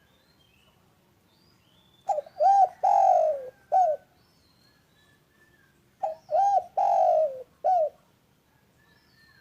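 Spotted dove cooing: two song phrases about four seconds apart, each a couple of short hooked coos, one long coo falling in pitch, and a short closing coo. Faint high chirps of small birds run underneath.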